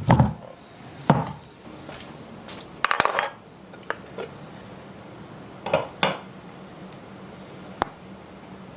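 Dishes and cooking utensils clattering: a string of separate knocks and clinks, about seven in all, some short and sharp, some a brief rattle.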